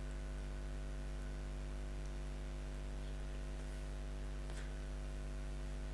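Steady electrical mains hum with a background hiss in the recording, with a faint click about four and a half seconds in.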